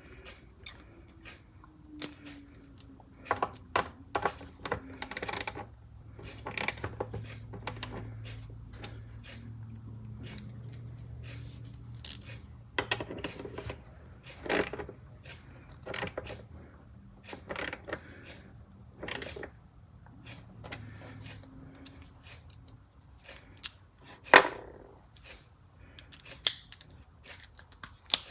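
Irregular clicks and knocks of a ratchet T-handle screwdriver being worked on screws and handled, some ringing briefly. A low steady hum underneath stops about three-quarters of the way through.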